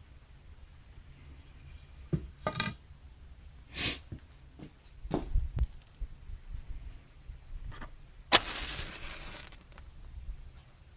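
Handling noises from a paper charcoal bag and charcoal-grill parts: a few brief rustles and knocks, then one sharp knock near the end followed by about a second of rustling hiss.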